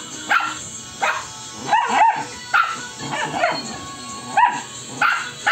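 Puppies yipping and barking in play: a run of short, sharp calls, roughly one every half second.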